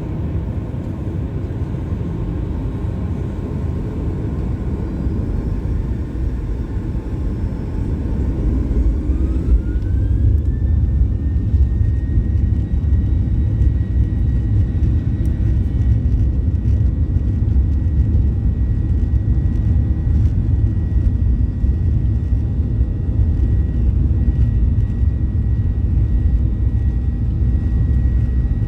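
Boeing 737-800's CFM56 jet engines heard from inside the cabin. A steady rumble runs at first; about nine seconds in, the engine whine rises in pitch and the rumble grows louder as the engines spool up to takeoff thrust. Both then hold steady, loud, through the takeoff roll.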